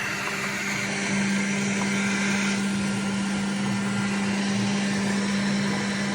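Brand-new electric fan running with a steady hum and a noisy whir. The hum grows louder about a second in. The owner puts the noise down to a bad bearing.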